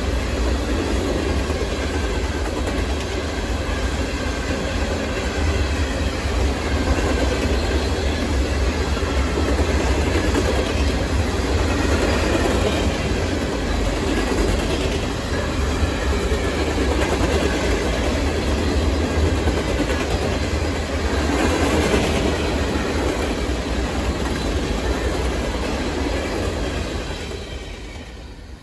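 A freight train of open-top freight cars rolling past at speed, a steady loud noise of steel wheels on the rails. Near the end the last car goes by and the sound quickly fades away.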